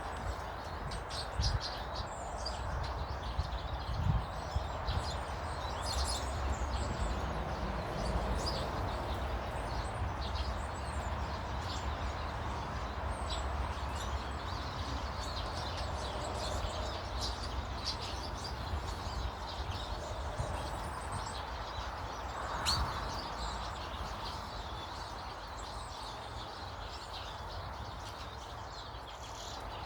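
Small garden birds chirping and calling in short, scattered notes, over a steady low background rumble.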